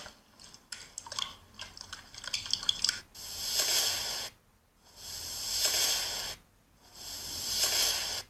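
Slime being worked in a satisfying-video clip: small crackles and pops, then three long squishing hisses of about a second each.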